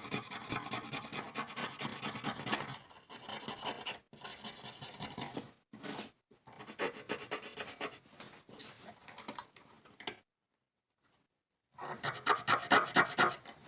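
Repeated scraping and rubbing on the metal parts of an old Ensign Ful-Vue box camera as it is cleaned. The noise breaks off briefly about ten seconds in, then comes back as a louder run of quick strokes near the end.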